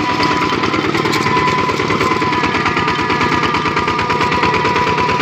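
Kubota RT-series two-wheel tractor's single-cylinder diesel engine running steadily while pulling a trailer, with rapid even chugging and a faint steady whine over it.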